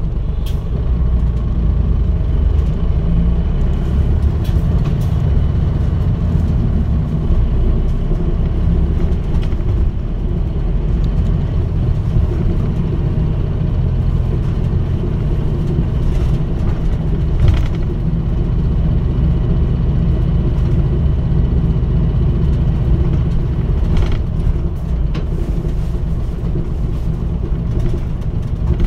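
Mitsubishi Fuso Aero Star city bus (KL-MP35JM) on the move, its diesel engine running steadily under way, with a few short clicks and rattles from the body.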